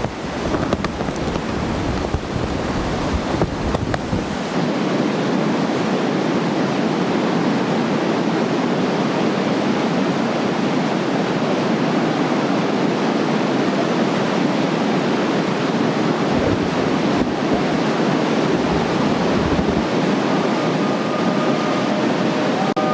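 Rushing river water, a steady, even noise like rapids, heard during a river-rafting run. For the first few seconds wind buffets the microphone with a low rumble.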